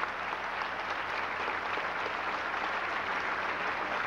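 A large audience applauding steadily: many hands clapping at once.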